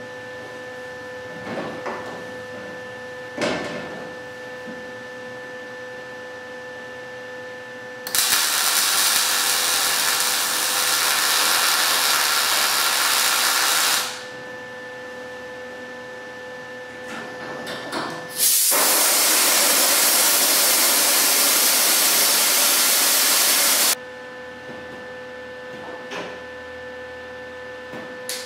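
MIG welder running two welds on the car's sheet-steel package tray extension. The arc burns steadily for about six seconds, stops, and then burns again for about five and a half seconds. Before and between the welds there is a faint steady hum and a few light knocks.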